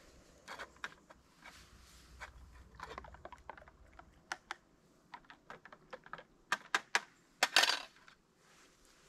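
Metal spoon and camp mugs clinking and tapping on a small folding camp table as coffee is stirred and served: scattered light clicks, busier toward the end, with one brief louder clatter about seven and a half seconds in.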